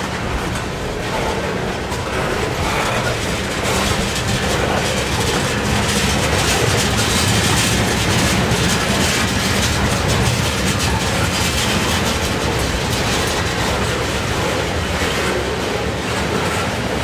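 Freight train of tank cars rolling past on the rails, a steady wheel-on-rail noise that holds level throughout.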